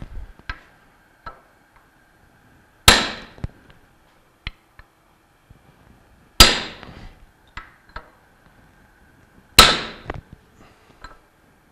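A hammer strikes the end of a length of pipe to drive a new ball bearing down onto a Bell & Gossett Series 1510 pump shaft clamped in a vise. There are three hard metallic blows about three seconds apart, each ringing out, with lighter clinks in between. The bearing is still going on and has not yet bottomed out.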